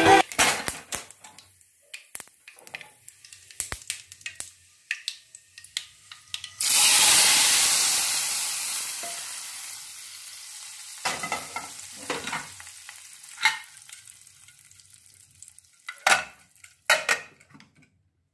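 Tadka of mustard seeds and dal in hot mustard oil: small clicks and taps in the pan, then about six and a half seconds in the tempering is poured into the cooked sambar with a sudden loud sizzle that fades away over several seconds. A few sharp metal clanks of pan and pressure cooker follow.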